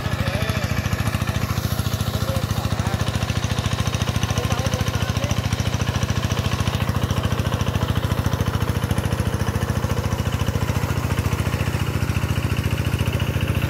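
A Quick G1000 two-wheel hand tractor's single-cylinder diesel engine running steadily with an even, rapid beat, working through a flooded rice paddy.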